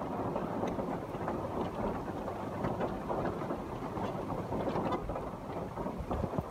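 Rain falling steadily: an even noise with many small drop ticks.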